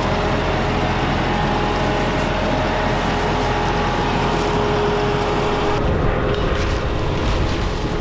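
New Holland diesel farm tractor running steadily, with a steady whine over the engine noise. The sound changes about six seconds in.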